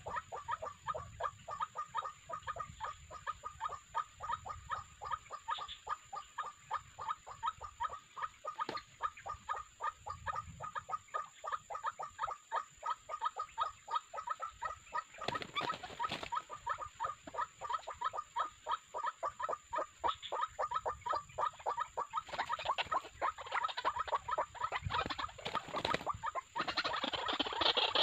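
White-breasted waterhen calling: a fast, steady series of short repeated notes, several a second, growing louder near the end.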